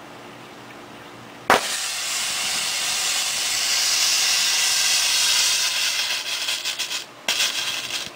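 Copper(II) oxide and aluminium thermite going off: a sudden burst about one and a half seconds in, then a loud rushing hiss for about five seconds as it sprays molten copper. Near the end it sputters, stops for a moment, and flares once more briefly before cutting off.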